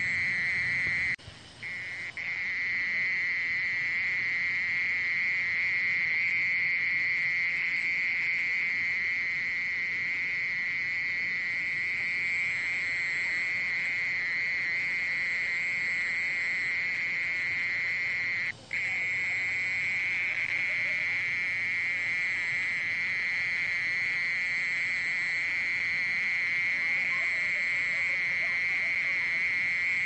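Oriental mole cricket singing at 27 °C: a continuous, steady, high-pitched buzzing trill. It breaks off briefly twice, about a second in and again a little past halfway.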